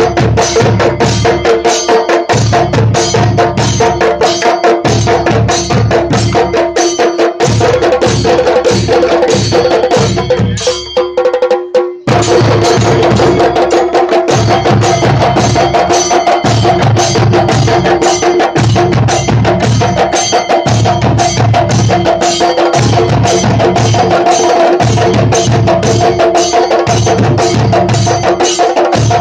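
Chenda melam: a group of chenda drums beaten with sticks in rapid, continuous strokes, with small ilathalam hand cymbals ringing along. The playing thins and briefly drops about eleven seconds in, then comes back at full force.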